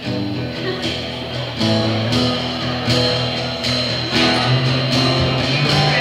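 Live band playing an instrumental passage: strummed and plucked guitars over a drum kit keeping a steady beat.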